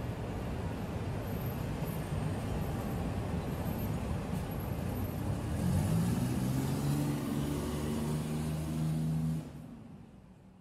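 Outdoor ambience of a small football ground, a steady noisy background. About five seconds in, an engine-like hum rises in pitch and holds, then the sound fades out near the end.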